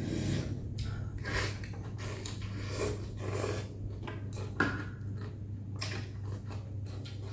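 Close-up eating sounds: slurping and chewing of rice noodles in soup, in short irregular smacks, with one sharp click about four and a half seconds in. A steady low hum runs underneath.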